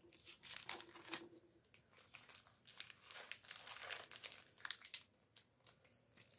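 Faint crinkling and rustling of foil Pokémon booster packs and their packaging being handled, in quick irregular bursts.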